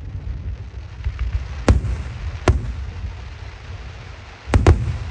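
Aerial firework shells bursting overhead over a continuous low rumble. Two sharp single bangs a little under a second apart come in the middle, then a quick double bang near the end.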